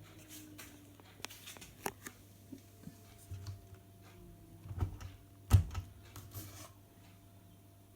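Fisher & Paykel front-loading washing machine paused mid-spin: the drum slowing down with a faint falling hum. Scattered clicks run through it, and there is a sharp knock about five and a half seconds in.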